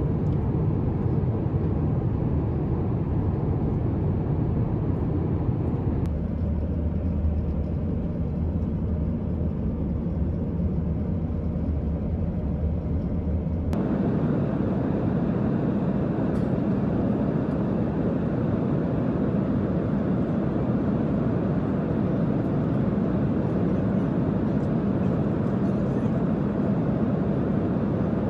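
Steady low rumble of an airliner cabin: jet engine and airflow noise heard from inside. Its tone shifts abruptly twice, about six seconds in and again near the middle.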